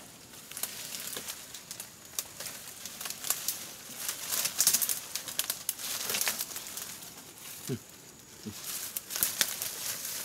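Leaves and dry twigs rustling and crackling as a person clambers through tangled brush on a fallen tree. The crackles are irregular, and they come thickest about four to five seconds in and again near the end.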